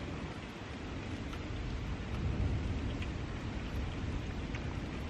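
Outdoor thunderstorm ambience: a steady rush of wind with a deep low rumble that swells about two seconds in and stays stronger.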